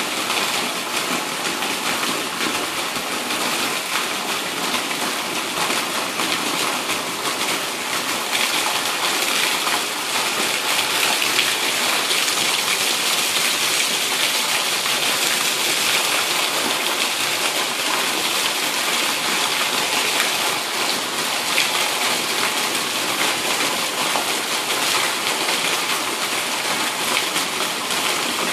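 Heavy monsoon rain pouring down steadily, with a stream of runoff spilling off the roof edge. It grows a little louder about ten seconds in.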